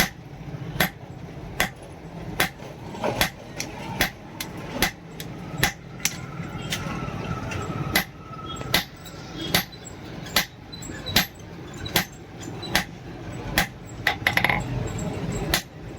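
Blacksmith's hammer blows on leaf-spring steel over an anvil, a hard ringing strike about every 0.8 seconds in an even rhythm, with lighter taps between.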